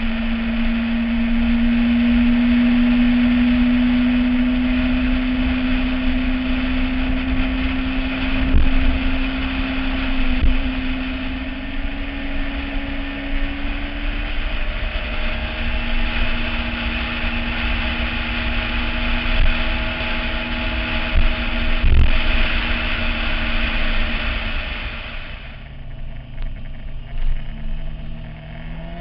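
Yamaha YZF-R6 inline-four engine running at a steady high cruise under a heavy rush of wind and road noise at the front-mounted camera, the engine note climbing slowly over the first half. Near the end the wind noise drops away sharply and the engine revs begin to rise as the bike pulls away at lower speed.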